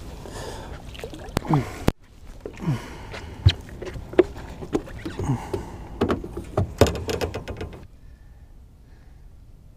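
Irregular hollow knocks and thumps on a small boat's deck as a freshly landed speckled trout and the tackle are handled aboard, some knocks ringing briefly; they stop near eight seconds in, leaving only a faint steady background.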